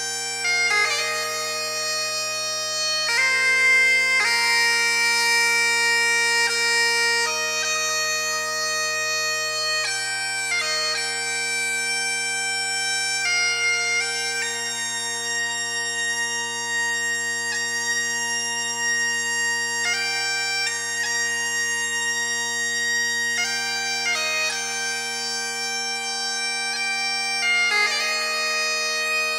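Bagpipes playing a slow melody over their steady, unbroken drones.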